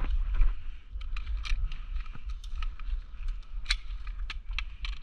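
Airsoft guns firing in the distance: scattered sharp clicks, some in quick little runs, the loudest a little before the four-second mark, over a constant low rumble on the microphone.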